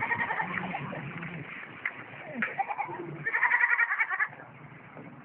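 A farm animal's bleat-like call: a few short calls at the start, then one louder call lasting about a second a little past the middle.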